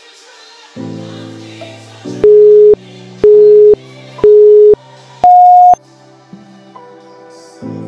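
Workout interval timer counting down: three identical short electronic beeps a second apart, then one higher beep marking the start of the next exercise, over background music.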